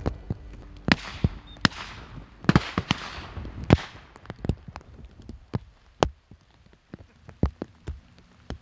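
A string of shotgun shots at flushed pheasants, several in quick succession over the first four seconds, each with a rolling echo. After that, fainter shots and light ticks of rain on the camera.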